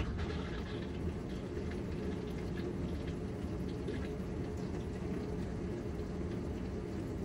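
Two cats eating wet cat food, with soft wet chewing and licking, one licking out an emptied stainless steel bowl.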